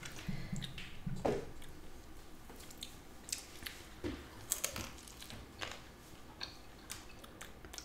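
People eating: faint biting and chewing with scattered small crunches and clicks.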